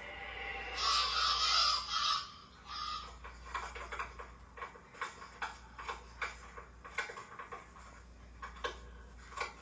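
Cartoon sound effects: a short hissing rush with a held tone, then a long run of irregular sharp clicks and ticks.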